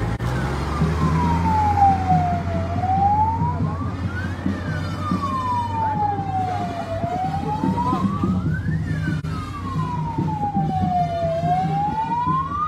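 A vehicle siren wails slowly, its pitch rising and falling about every four and a half seconds, with a low rumble beneath it.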